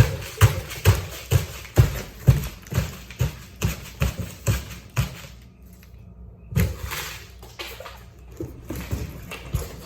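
A series of short thumps, about two a second, that stop about five seconds in, then one strong thump followed by a few weaker ones near the end.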